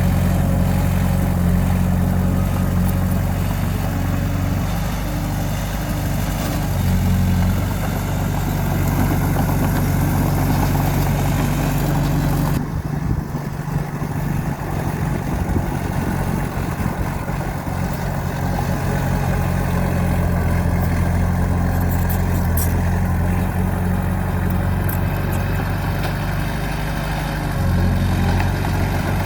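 Bulldozer diesel engine running steadily, its low drone stepping up and down in pitch a few times as it works. The sound changes abruptly about halfway through.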